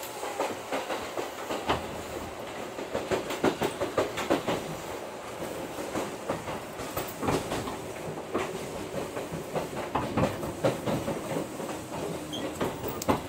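Seibu Ikebukuro Line electric commuter train running along the track, heard from inside the carriage: a steady running rumble with irregular clusters of wheel clicks and clacks over rail joints.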